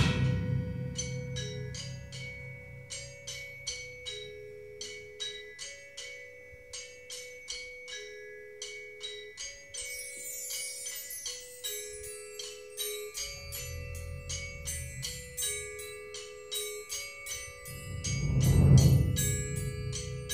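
Percussion quartet playing softly: vibraphone and glockenspiel repeat a gentle rocking two-note figure, joined by crotales struck with triangle beaters. About halfway through a wind-chime sweep falls, then a thunder tube gives a low rumble, and near the end a bass drum roll on timpani mallets swells and fades, the loudest moment, imitating a storm.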